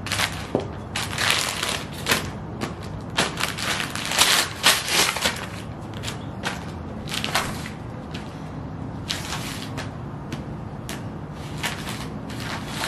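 Ugg sheepskin boots stomping on glossy magazines on concrete: repeated crinkling and crushing of paper underfoot, thick and fast through the first half, then in sparser clusters toward the end.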